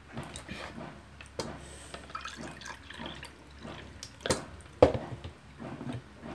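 Water being poured into a drinking cup, with small drips and clicks. Two sharp knocks come a little past halfway, the second the loudest, as a container is set down on the table.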